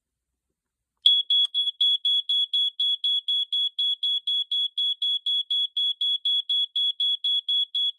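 Family Gard FG888L ionization smoke alarm sounding on test: a loud, high-pitched beep pulsing rapidly, about four beeps a second, starting about a second in after a short delay.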